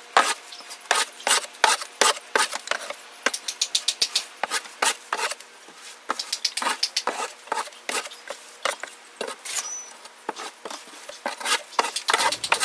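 A long-handled tool scraping old straw bedding across a wooden chicken-coop floor, in many quick, irregular strokes, about two a second.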